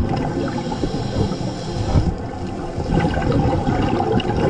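Underwater rushing and bubbling from a scuba diver's exhaled air.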